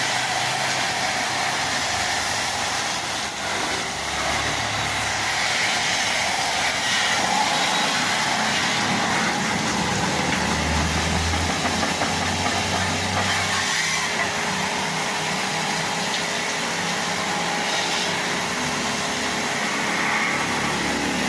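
Small electric pressure washer running, its motor humming under a steady hiss of water spraying against an air-conditioner unit.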